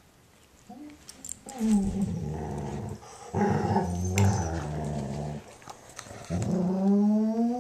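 German Shorthaired Pointer making low, drawn-out happy noises, three long ones starting about a second and a half in, the last rising slightly in pitch: her contented response to having her ear licked clean by a Weimaraner.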